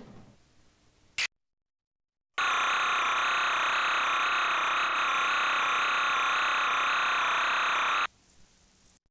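Closing music fades out, then after a short gap of silence a loud, steady electronic buzzing tone sounds for about five and a half seconds and cuts off suddenly.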